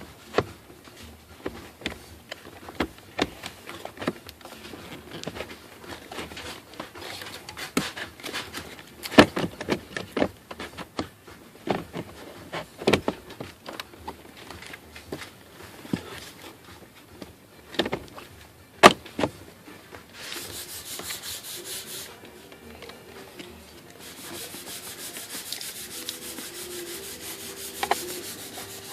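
Irregular clicks and knocks as the blower motor and plastic dashboard parts are handled, then a fast, continuous rasping sound twice near the end.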